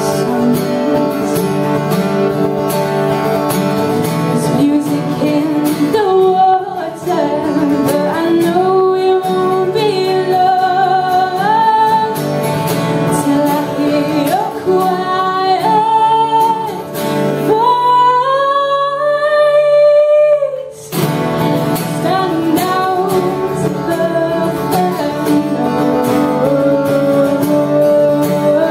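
A woman singing a folk song, accompanied by two acoustic guitars. About two-thirds of the way through, the guitars drop back while she holds one long note, then they come back in.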